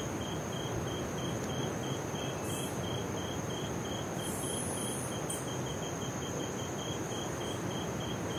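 Coastal rainforest ambience. Ocean surf makes a steady wash underneath. Over it, insects give a continuous high whine and a chirping at about four chirps a second, with a few short high buzzes now and then.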